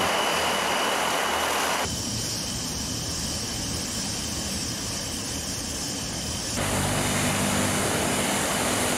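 Tu-95MS bomber's four turboprop engines running, their contra-rotating propellers turning, a steady drone and rush. The sound changes abruptly about two seconds in and again near six and a half seconds, and a steady low hum comes in for the last part.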